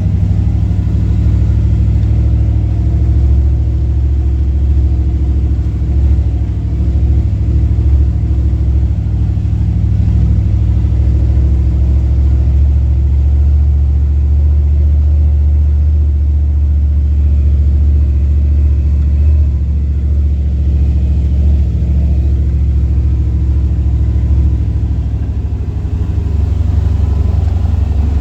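Jeep driving along at a steady pace: a loud, steady low engine and road rumble with no shifts or big changes in speed.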